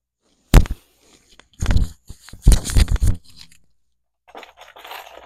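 Plastic Lego bricks being handled: a sharp knock about half a second in, then heavy bumps and clatter as pieces are set down and moved on the table. From about four seconds in comes a lighter rattle of small pieces being stirred inside a cardboard box.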